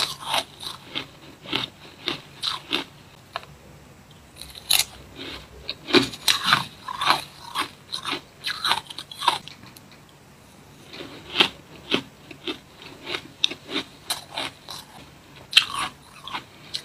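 Close-up mouth sounds of a person biting and chewing spoonfuls of soft, sandy shaved ice: runs of short, crisp crunches in irregular clusters, with brief lulls between mouthfuls.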